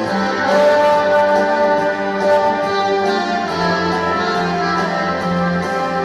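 Orchestral freestyle music with brass instruments playing long held notes; the harmony shifts about halfway through.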